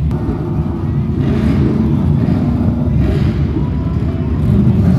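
Several BriSCA F1 stock cars' V8 engines running together as the cars lap the shale oval, a dense, steady rumble.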